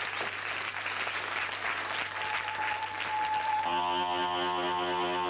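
Audience applauding, cut off suddenly about three and a half seconds in by a steady, buzzy droning tone.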